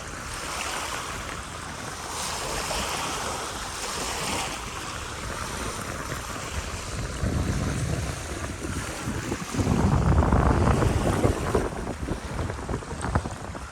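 Wind buffeting the camera's built-in microphone over a steady rushing hiss, with heavy rumbling gusts about seven and ten seconds in.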